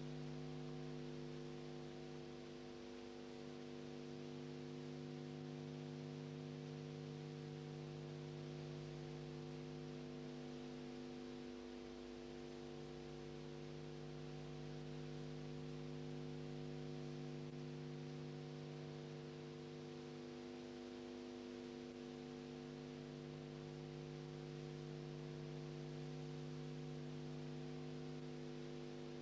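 A steady, unchanging hum made of several held tones at once.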